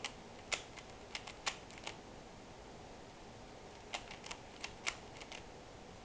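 Plastic Rubik's cube being turned layer by layer by hand: quick runs of sharp clicks, with a pause of about two seconds in the middle.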